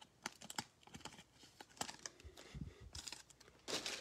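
Foil trading-card pack wrapper crinkling and cards being handled: a faint run of small clicks and rustles, with a louder crinkle near the end.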